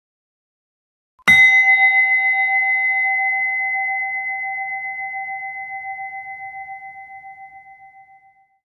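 A single struck bell-like tone comes in about a second in and rings out, fading slowly with a gentle wavering over about seven seconds.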